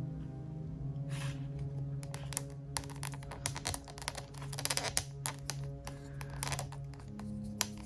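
Background music with steady held notes, over frequent small clicks and taps of hard plastic figure parts being handled and pushed together as the wings are fitted on.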